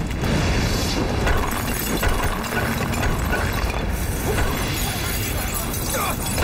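Fight sound effects for a martial-arts battle: dense, continuous whooshes and hits of striking blows.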